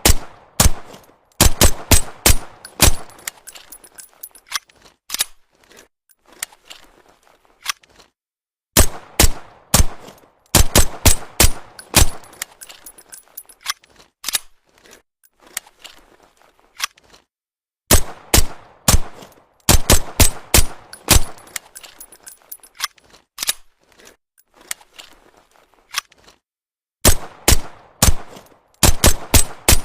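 Suppressed Walther PPK pistol sound effect: sharp shots fired in quick strings of several, with a few seconds of silence between strings.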